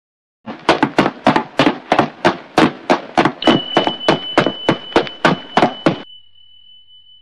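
A fast, even run of about twenty sharp knocks, roughly three a second, that stops about six seconds in. A thin, steady high-pitched tone comes in halfway through and fades out after the knocks end.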